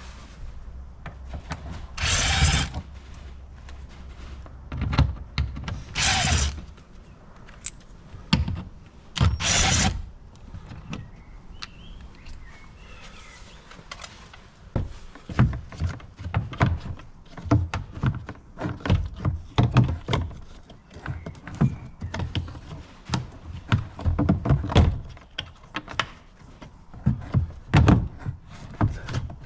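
Hands-on work inside a car door: three short, loud rasping bursts in the first ten seconds, then a long run of clicks and knocks as parts and fasteners are worked loose.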